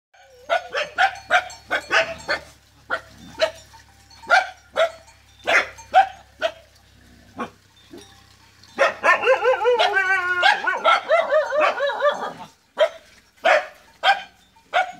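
Street dogs barking in short, sharp barks, then from about nine seconds in a few seconds of continuous high, wavering cries from the dogs before the barking resumes.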